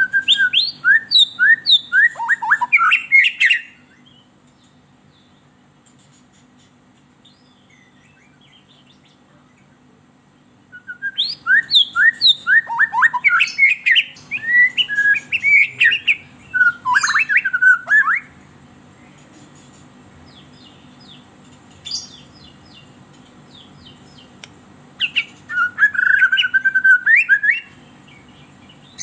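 White-rumped shama (murai batu) singing in three bursts of rapid, varied whistled phrases, with long pauses between them, over a low steady hum. This is the fired-up, aggressive song played as a lure to provoke a pet shama into singing.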